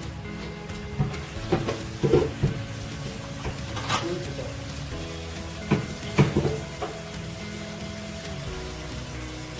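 Fish curry sizzling and bubbling in a frying pan, with a few knocks and scrapes from the glass lid and a spoon against the pan, clustered around two seconds in and again around six seconds in. Soft background music plays underneath.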